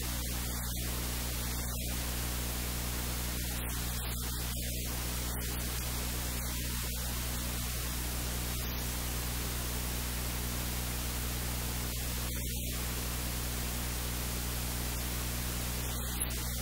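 Steady static hiss with a low electrical hum underneath, unchanging throughout.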